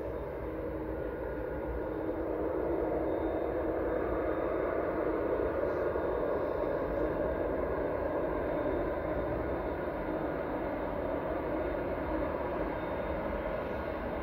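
Distant jet airliner engines running on the runway: a steady rushing engine noise that swells over the first few seconds, then eases slightly.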